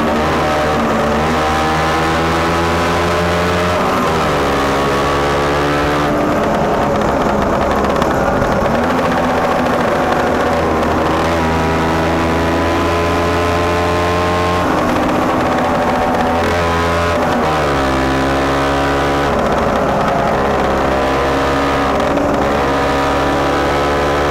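Lambretta scooter engine under way, its pitch climbing as it accelerates and then dropping back abruptly, several times over.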